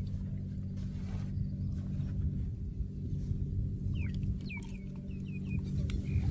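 An engine running steadily with a low hum, and a bird giving several short chirping calls about four seconds in.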